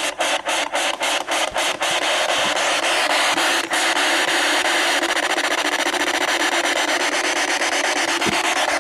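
Spirit box radio scanning through stations, giving a steady hiss of static chopped into rapid short fragments. In the first two seconds the static cuts out briefly several times.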